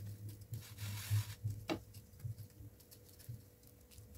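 Wooden spatula pressing and scraping a slice of bread in a non-stick frying pan as it toasts: soft knocks, a short hiss in the first second, and one sharp click about a second and a half in.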